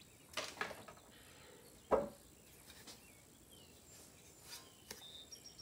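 A metal hard drive cage from a PC case being handled: a few faint clicks and one sharp knock about two seconds in, otherwise quiet.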